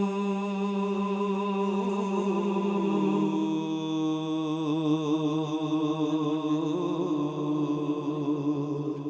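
A single male voice singing one long drawn-out note of a naat, wavering slightly and stepping down a little in pitch about three seconds in.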